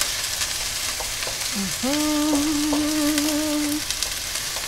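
Garlic and onions sizzling in olive oil in a nonstick wok, stirred with a wooden spoon that scrapes and taps the pan. About two seconds in, a woman's voice hums one held note for about two seconds.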